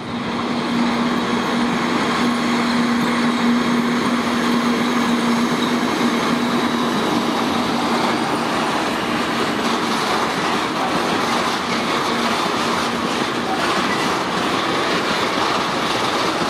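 Freight train passing: an SBB Cargo electric locomotive hauling a long rake of open box wagons loaded with sugar beet, wheels rolling on the rails with a steady rumble. A steady low hum runs through the first half and fades out about halfway through.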